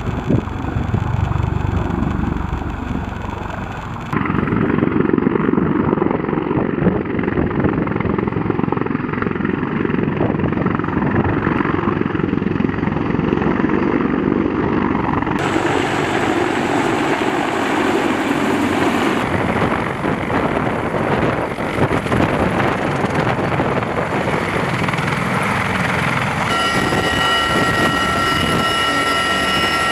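CH-53E Super Stallion heavy-lift helicopter's rotors and turbine engines running as it flies low overhead. Near the end the sound changes to the inside of the cabin, with a steady high turbine whine over the rotor noise.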